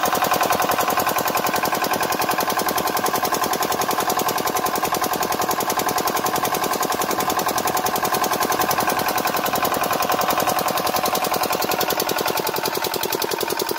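A 5 hp single-cylinder diesel engine running steadily under load, with a fast, even knocking beat, as it turns a 16-paddle wheel aerator through a gearbox and shaft.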